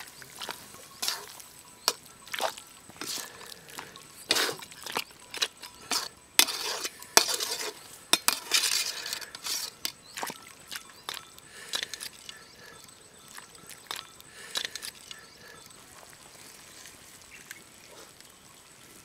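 A ladle stirring pork curry in a metal cooking pot, with irregular clinks and scrapes against the pot, dying away after about fifteen seconds.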